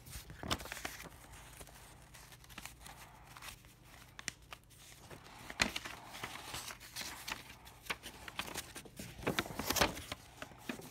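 Handling noise: rustling, scraping and irregular clicks as a handheld phone camera rubs and bumps against bedsheets and DVD cases. Louder knocks come about five and a half seconds in and again near the end.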